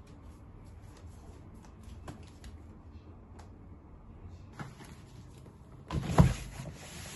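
Cardboard boxes being carried and handled, with light knocks and rustles, then a heavy thud about six seconds in as a box is set down on the floor.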